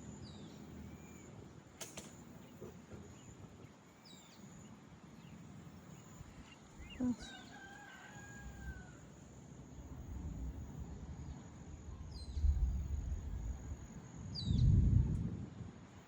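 A rooster crowing once, a long drawn-out call about seven seconds in, over short high chirps of small birds that come several times. Two low rumbles come near the end, the louder one just before the end.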